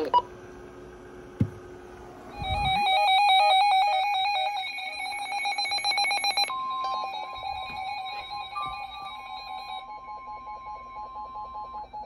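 NOAA Weather Radio alert tones: a loud warbling electronic alarm begins about two and a half seconds in. About six and a half seconds in it gives way to a steady high tone, the 1050 Hz warning alarm tone, which sounds over rapid beeping until near the end. The tones announce a new severe thunderstorm warning.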